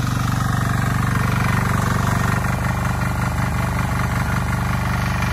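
Trâu Vàng mini tiller's single-cylinder 173F diesel engine running steadily under load as the tiller works through paddy mud, a fast even chugging; its note shifts slightly about two and a half seconds in.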